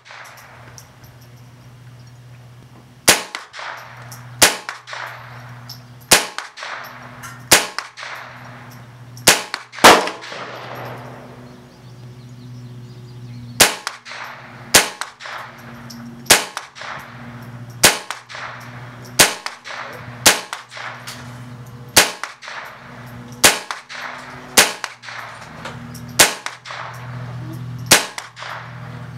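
Colt M4 .22 LR rifle firing single shots at a steady pace, about one shot every second or so. The shots pause for about three and a half seconds around ten seconds in, then resume at the same pace.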